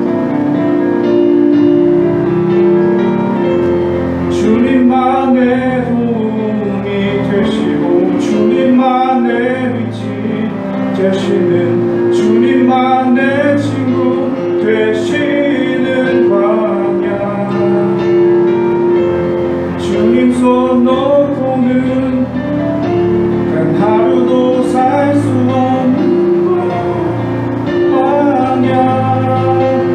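Worship song sung in Korean, a man's voice carrying the melody over held instrumental chords.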